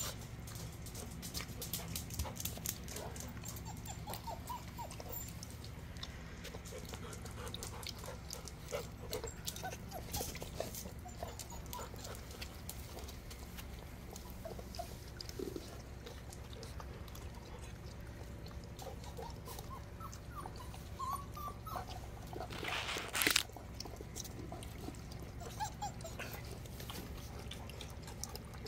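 Weimaraner puppies eating and drinking: many small clicks and crunches of kibble and lapping at water and food bowls, with occasional short, rising puppy whimpers. Late on there is one brief, louder rushing burst of noise.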